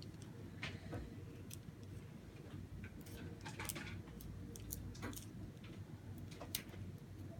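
Scattered light clicks and taps at an irregular pace from small objects being handled.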